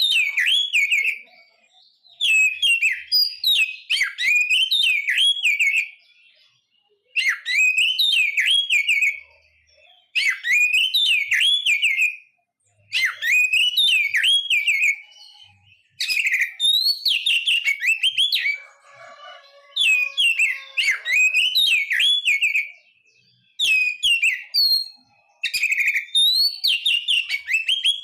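Oriental magpie-robin (kacer) singing: a run of loud, rapid whistled song phrases, each one to three seconds long with short pauses between, about nine in all.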